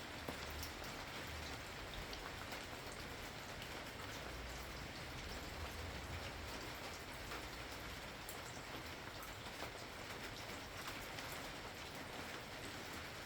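Steady rain falling, with many fine drops pattering on a surface and a faint low rumble swelling now and then underneath.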